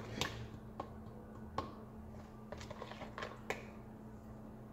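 A spoon stirring a marinade in a plastic bowl: scattered light clicks and taps of the spoon against the bowl, at irregular intervals.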